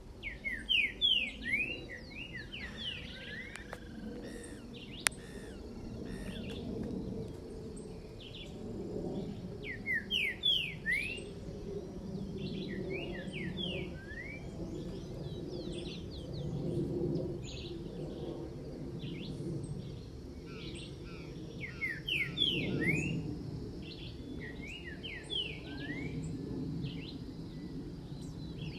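A pixarro (green-winged saltator) singing: phrases of quick sweeping whistled notes, repeated every few seconds, in the song style breeders call 'grego boca mole com boi mateiro'. A steady low rumble of background noise runs underneath.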